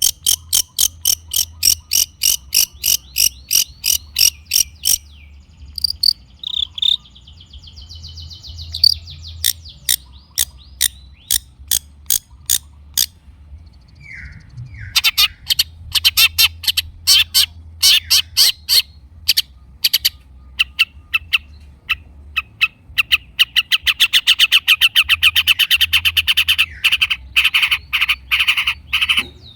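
Long-tailed shrike (cendet) singing: a chattering string of sharp, clipped notes, about four a second. The notes pause briefly near the middle and then return as a faster, denser run toward the end.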